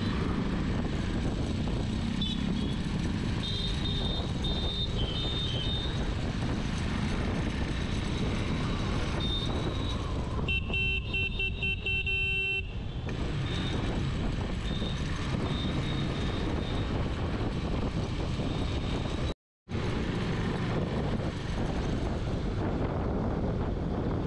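Motorcycle riding at road speed, with steady engine, tyre and wind noise. Traffic horns sound over it: several short high beeps in the first few seconds, then one long horn blast of about two seconds near the middle. The sound cuts out briefly about three-quarters of the way through.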